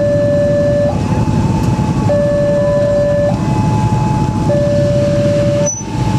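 Railway level crossing warning alarm sounding, an electronic two-tone signal alternating evenly between a lower and a higher tone, each held about a second, over a steady low rumble of traffic. It signals that the crossing barrier is closing for an approaching train.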